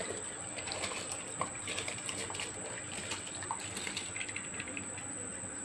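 Soaked rice poured from a bowl into a pot of boiling water: a steady watery rush and bubbling with many small ticks and patters as the grains drop in. A thin, steady high whine runs underneath.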